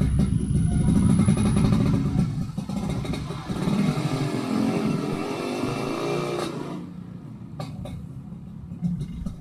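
Yamaha RX-King two-stroke single-cylinder motorcycle with an aftermarket under-slung exhaust, heard while riding. It is loud for the first couple of seconds, its pitch rises and falls in the middle as the throttle changes, and it drops to a quieter, lower running sound for the last few seconds.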